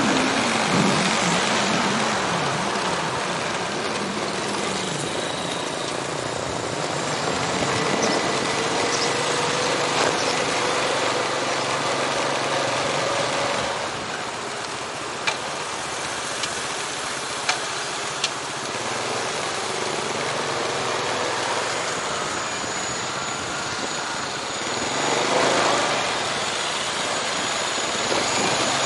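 Riding a motorbike through city traffic: steady wind and road noise on the microphone, with engine pitch falling near the start and rising slowly for a few seconds in the middle. Three sharp clicks come a little past halfway.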